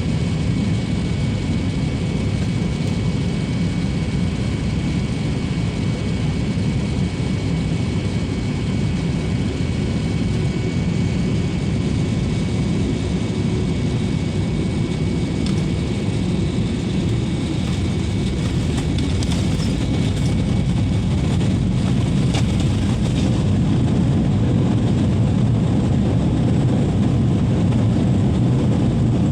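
Airliner cabin noise: the steady low roar of the engines and rushing air heard from inside the passenger cabin, getting slightly louder about two-thirds of the way through.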